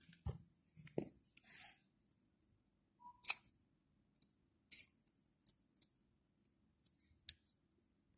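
Scattered small clicks and soft rustles of hands handling small plastic toys and tape, the two loudest clicks about three and five seconds in.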